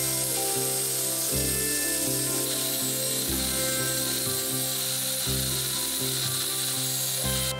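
Small angle-head rotary tool running with a sanding disc against the wooden planking of a model boat hull, a steady high whir with mechanical chatter. It cuts off abruptly near the end. Background music plays underneath.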